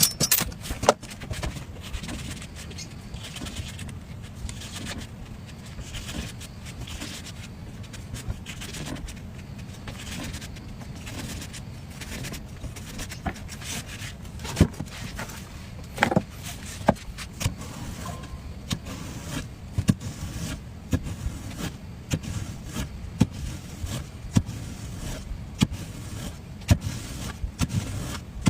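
Knife carving a watermelon: scattered short clicks and scrapes of the blade in the rind, over a steady low background rumble.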